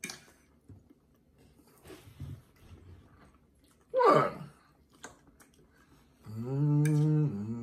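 People eating: quiet chewing and light fork clicks. About four seconds in comes a short, loud vocal exclamation that falls in pitch, and near the end a long, low hummed "mmm".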